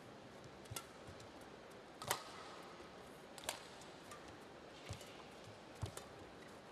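Badminton rally: sharp racket strikes on the shuttlecock about every second and a half, with dull thumps of footwork on the court, over a faint steady arena hum.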